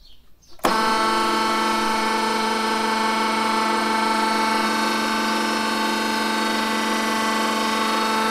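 Hydraulic press pump motor switching on suddenly under a second in and then running steadily, a constant mechanical hum with several unchanging tones.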